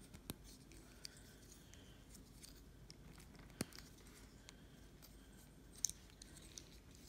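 Faint, scattered clicks and taps of a plastic Transformers Power of the Primes Slash figure being handled and transformed, the sharpest about three and a half seconds in and another near six seconds.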